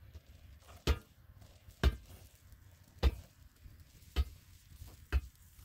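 Five sharp, heavy blows struck about one a second, steady and evenly spaced: a hand tool striking repeatedly during building work.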